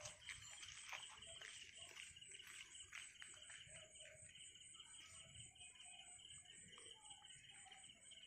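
Near silence, with night insects, likely crickets, chirping steadily in a fast, even pulse.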